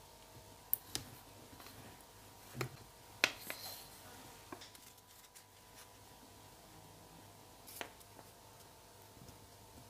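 Faint handling sounds of a steel ruler and leather pieces on a work board: a few scattered light taps and clicks, the sharpest about a third of the way in, over a faint steady hum.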